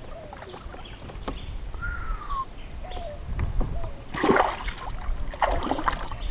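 Water splashing as a peacock bass is released by hand beside a kayak and kicks free: one loud splash about four seconds in, then a smaller second splash a second or so later.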